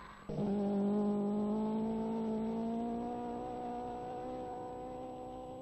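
Car engine running at high revs, its pitch rising slowly as it accelerates. It starts suddenly just after the start and cuts off abruptly at the end.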